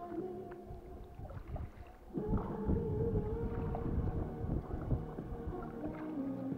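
Background music of long held notes, shifting to a new, louder chord about two seconds in over a denser low layer.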